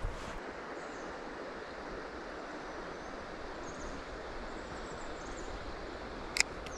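Steady rush of flowing creek water. A single sharp click sounds near the end.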